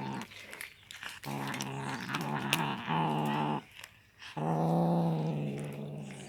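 Cat growling low over its fish in long, drawn-out growls of about two seconds each, with short breaks between them: a food-guarding growl.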